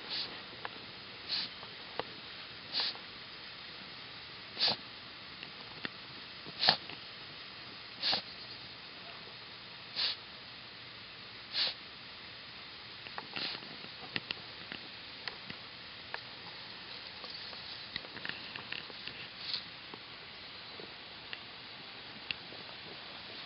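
A dog sniffing hard with its nose down in a hole in the dirt: short sharp sniffs about every one and a half to two seconds, then fainter snuffling and a few more sniffs near the end.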